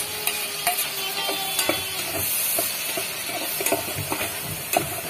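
Diced tomatoes and garlic sizzling in hot oil in a rice cooker's metal pot, stirred with a metal spoon that clicks and scrapes against the pot.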